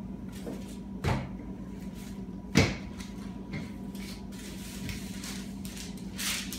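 Wooden rolling pin rolling out dough on a paper sheet over a wooden table: a few sharp knocks, the loudest about two and a half seconds in, then paper crinkling and rustling near the end. A steady low hum runs underneath.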